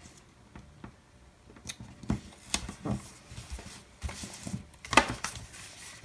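Paper handling: a sticker pressed down on a planner page and a paper sticker book's pages picked up and leafed through, giving scattered light taps and rustles. A louder paper rustle comes about five seconds in, then a sharp tap near the end.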